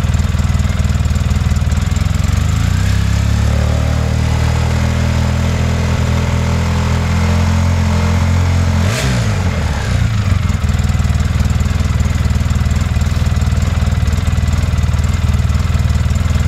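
Polaris Sportsman 800 ATV's twin-cylinder engine running through a stock muffler extended with a Benz ATV Silencer, giving a subdued exhaust note. It idles, is revved up about three seconds in and held, then drops back to idle with a brief click about nine seconds in.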